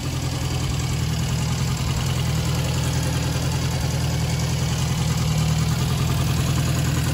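Ariel Square Four's 1000cc four-cylinder engine idling steadily.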